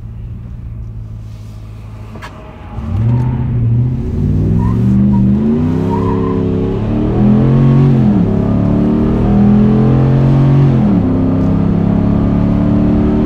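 5.7 L Hemi V8 of a 2017 Ram 1500 breathing through an MBRP high-flow oval muffler, heard from inside the cab. It runs low for a couple of seconds, then goes to wide open throttle. The engine note climbs loudly and drops back at each of about three upshifts.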